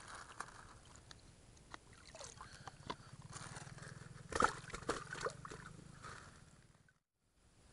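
Water sloshing and splashing with knocks and rustles as a tilapia is put into a mesh keepnet floating on an inner tube and the net's mesh mouth is pulled shut by hand; the loudest splash comes about four and a half seconds in. The sound cuts out briefly near the end.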